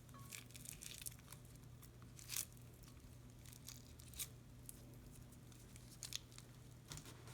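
Faint, scattered crinkling and crackling from handling crunchy slime-making materials: plastic piping bags and bead-filled slime. The strongest crackle comes about two and a half seconds in.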